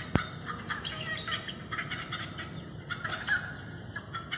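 Hen clucking: a steady run of short, quick clucks. A single sharp click sounds just after the start.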